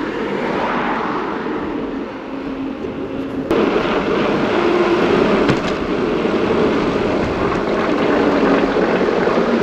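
Steady rushing noise of riding a bike along a road, from wind on the microphone and traffic. It gets suddenly louder about three and a half seconds in.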